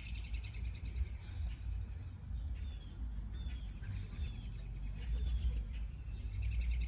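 Small birds chirping: short high chirps every second or so, a few of them quick falling notes, over a steady low rumble.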